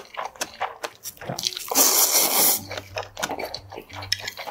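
Close-miked eating: a long, loud slurp of seaweed bibimmyeon noodles about two seconds in, among wet chewing and mouth-smacking clicks.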